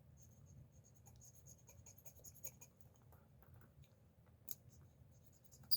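Faint repeated scratching of a small gold-tone bead being rubbed on a gold-testing stone, with a light click about halfway through and a sharper click near the end.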